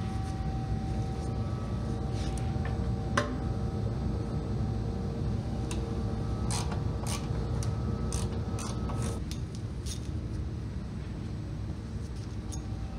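Scattered light clicks and knocks from hand work on car fender bolts and panel, with one sharp knock about three seconds in, over a steady background hum whose held tones stop about nine seconds in.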